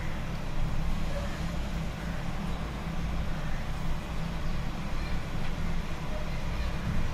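Steady low hum and rumble of background noise, unchanging throughout.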